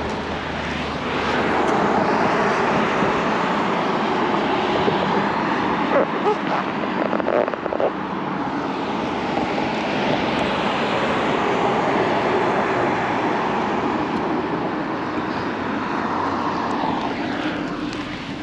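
Steady rushing noise of passing vehicles, swelling over the first couple of seconds and easing toward the end, with a few short knocks about six to eight seconds in.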